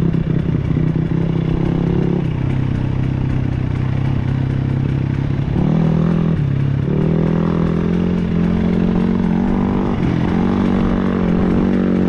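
KTM 300 two-stroke dirt bike engine running on the trail. Its revs step down about two seconds in, dip briefly around six seconds, then hold higher for the rest.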